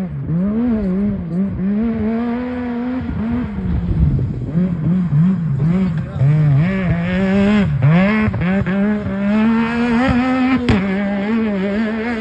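Yamaha YXZ1000R's three-cylinder engine through a Weller Racing exhaust, revving hard and dropping back over and over as it is driven around a short course. A sharp drop in pitch comes near the end.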